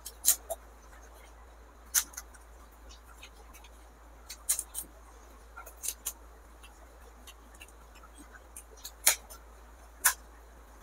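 Crisp puri shells of pani puri cracking as they are eaten: sharp crunching clicks at an uneven pace, about six loud ones with smaller ticks between.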